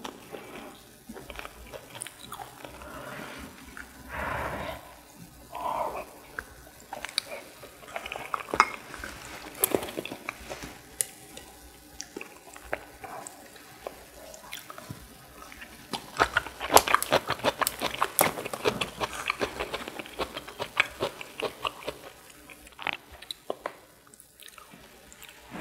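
A person eating abalone rice porridge: soft chewing and mouth sounds with scattered clicks of a spoon against the bowl, and a denser run of crisp clicks and crunches about two-thirds of the way through.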